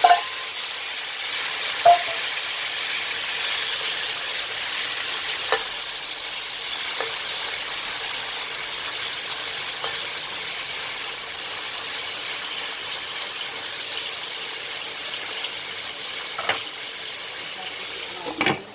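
Fish and firm tofu frying in hot oil: a steady sizzle, with a few sharp clinks of a spatula against the pan as it is stirred. The sizzle drops away near the end.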